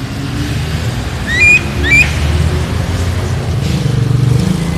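A starling gives two short, clear whistles that sweep upward, about half a second apart, over a steady low rumble.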